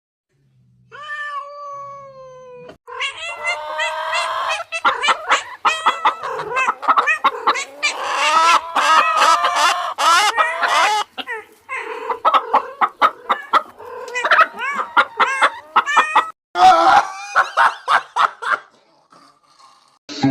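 Animal calls: one drawn-out, falling cat meow about a second in, then long runs of rapid, pitched cries mixed with clucking, like cats and chickens calling together. The cries break off briefly about twelve seconds in, then go on until just before the end.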